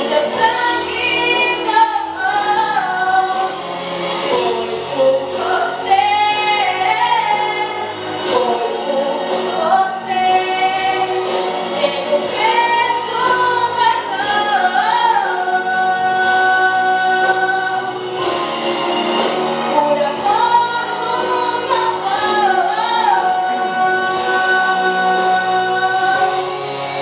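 Voices, led by a woman's, singing a Christian hymn over instrumental accompaniment, with long notes held at the ends of phrases.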